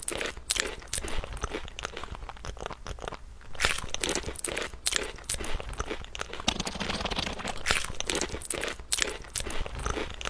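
Close-up crunching and chewing of crisp fried fish being eaten: many sharp, irregular crunches in quick succession.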